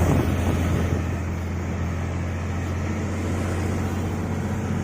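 A vehicle's engine running steadily with a low, even drone.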